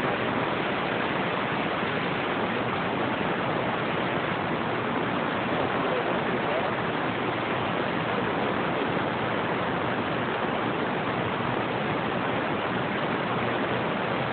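Radio receiver static: a steady hiss of band noise on an open channel, cut off above about 4 kHz, with no station coming through clearly.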